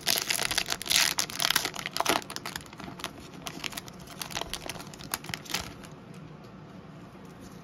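Trading card pack wrapper crinkling and tearing as it is opened in gloved hands. It is loudest in the first two or three seconds, then thins to occasional rustles before going quiet about six seconds in.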